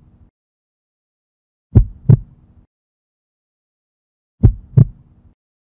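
Heartbeat sound effect: slow double thumps (lub-dub), one pair about two seconds in and another near the end, with silence between.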